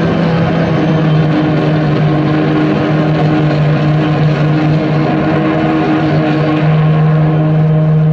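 Live noise music: a loud, dense, steady drone with one low tone held throughout and a wash of hiss and rumble over it.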